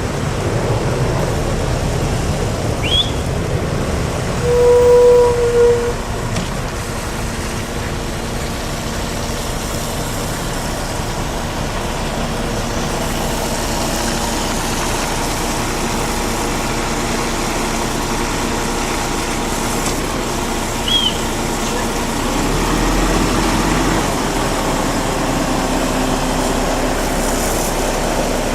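Heavy truck engines running steadily, with a short horn toot about five seconds in and a deeper rumble building briefly near the end.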